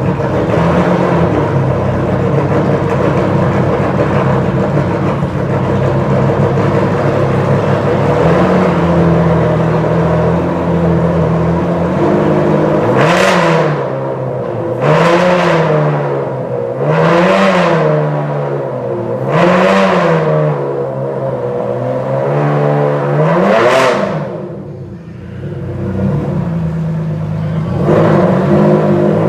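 Ferrari Enzo's V12 engine idling steadily, then blipped about five times from about halfway through, each rev rising sharply and falling back to idle.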